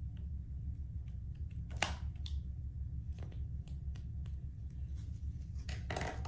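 Small clicks and two short rustling knocks of plastic cosmetic containers being handled on a counter, over a steady low hum.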